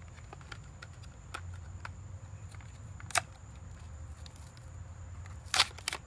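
Hot Wheels blister pack of card and plastic being torn open by hand: scattered small clicks and crinkles, with a louder crackle about three seconds in and the loudest burst of crackling near the end.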